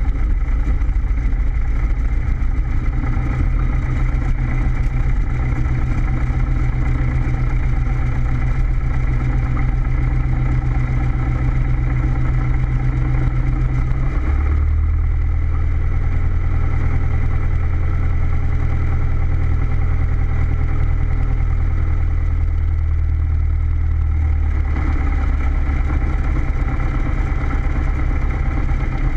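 Cessna single-engine piston engine and propeller running at low power while taxiing. The engine note drops lower about halfway through and comes back up near the end.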